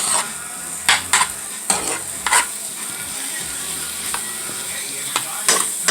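Food sizzling in a hot frying pan, with a cooking utensil knocking and scraping against the pan several times.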